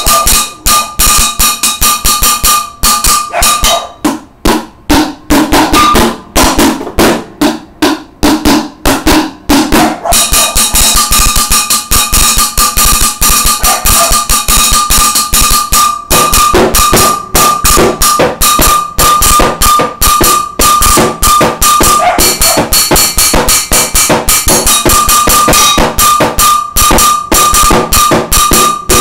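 Fast, continuous freestyle drumming with wooden sticks on a stainless steel cooking pot, many hits a second, with a steady metallic ring over the strokes. About four seconds in the ring drops out and the hits turn lower and duller for several seconds, then the ringing pot hits return.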